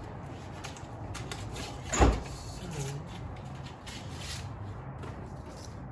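Packing material being handled on a new bicycle: light rustling and crinkling with small ticks, and one sharp knock about two seconds in.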